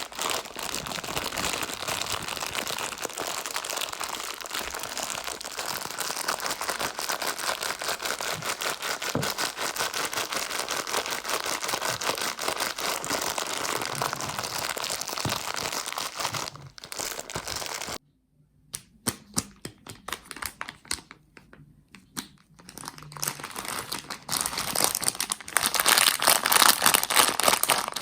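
Plastic Haribo sweet bags crinkling and rustling as they are handled and emptied onto a platter: dense crackling for about eighteen seconds, then it stops abruptly, a few scattered clicks follow, and the crinkling builds up again loudly near the end.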